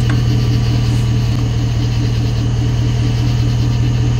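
An engine idling steadily nearby, a loud even low hum with a regular pulsing beat.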